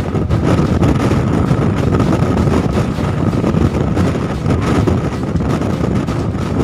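Strong wind buffeting the microphone on board a ferry: a loud, steady rushing rumble, with a faint steady high hum underneath.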